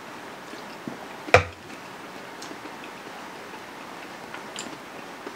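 A metal juice can set down on a wooden table with one sharp knock about a second in, then a few faint ticks over a steady low hiss.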